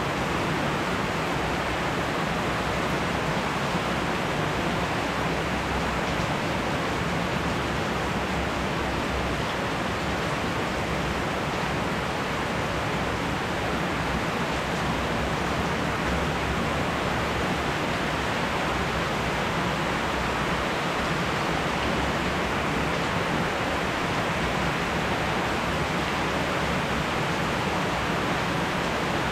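Steady rain from a spring thunderstorm falling on leafy trees, an even hiss that holds at one level throughout.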